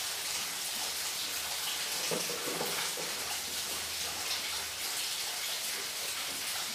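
Steady hiss of rain, with a few faint soft knocks of things being handled about two seconds in.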